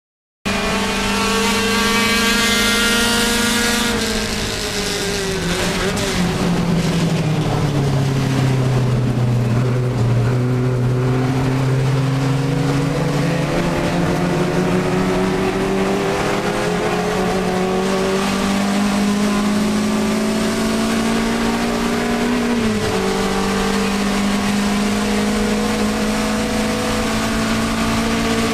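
Alfa Romeo 1750 GTV's twin-cam four-cylinder engine at racing revs, heard from inside the cabin. The revs hold high, fall about four seconds in, then climb slowly and steadily under acceleration, with a sharp dip at a gear change about three-quarters of the way through before rising again.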